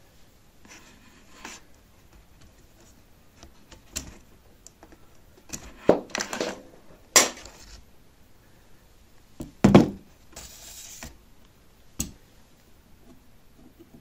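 Metal washing-machine heating elements being handled, clinking and knocking against a plastic bucket and the table: a scattering of sharp knocks, the loudest about six, seven and ten seconds in, with a brief hiss just after ten seconds.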